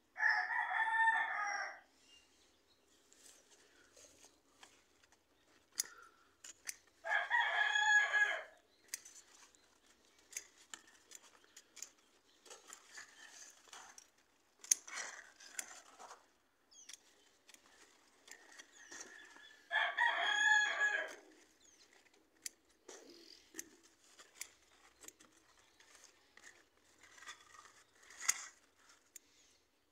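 A rooster crows three times, each crow about a second and a half long: right at the start, about seven seconds in, and about twenty seconds in. In between there is faint rustling and snapping of chayote vine leaves being pushed aside by hand.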